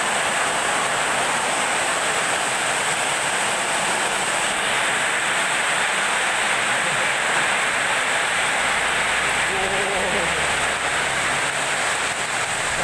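Torrential rain pouring down in a steady, loud rush. About eight seconds in, a low engine rumble joins it for a few seconds, as of a vehicle passing.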